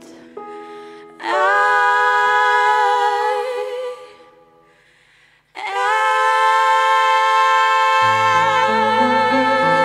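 Live singing: a voice holds one long note with vibrato about a second in, fades, then holds a second long note from about halfway through. Soft instrumental chords accompany it, with lower chords coming in near the end.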